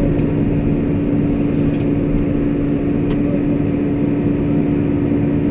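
Farm tractor engine running steadily at a constant speed, heard from inside the cab as an even drone, with a few faint clicks.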